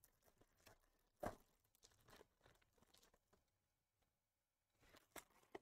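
Near silence broken by a few faint clicks and crackles of trading cards and pack wrappers being handled, one about a second in and a couple near the end.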